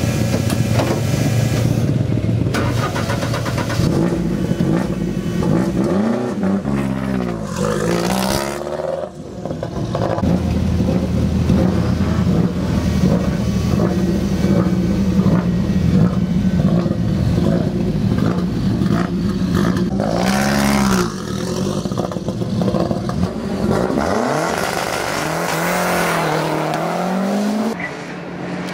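Lancia Delta Integrale's turbocharged four-cylinder engine running at idle and being revved several times, its pitch rising and falling with each blip.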